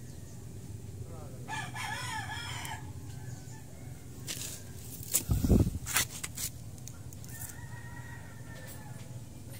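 A rooster crows once, a wavering call about a second and a half in, and a flatter call follows near the end. Just past the middle comes a short cluster of loud knocks and thuds, the loudest sound.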